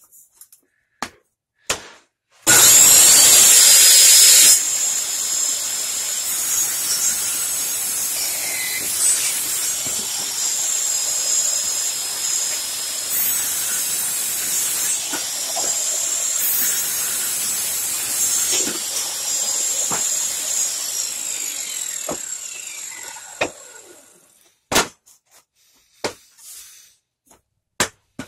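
Handheld circular saw mounted under a plywood table as a homemade table saw, switched on about two and a half seconds in and running steadily while it rips a wooden board, then winding down and stopping near the end. A few wooden knocks follow as the cut pieces are handled.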